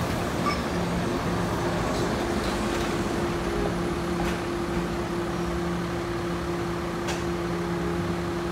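Street traffic noise as a city bus and a trolley car pull away through the junction, under a constant mechanical hum with a few faint ticks.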